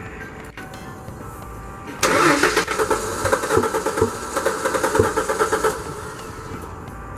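Starter motor cranking a 1994-98 Ford Mustang V6 for about four seconds with an even pulsing rhythm, the engine not catching, then cutting off: a crank-but-no-start.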